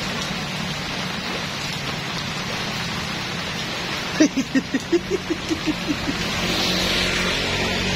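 Heavy rain falling steadily on a flooded road. About four seconds in comes a quick run of about ten short pitched sounds, lasting under two seconds.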